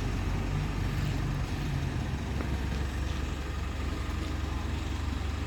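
Motorcycle engine running with a low, steady rumble that drops to a lower note about two seconds in.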